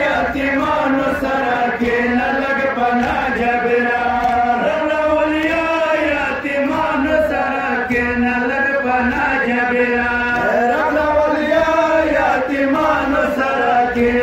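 Male voices chanting a mourning lament (nauha) in a continuous, drawn-out melodic chant.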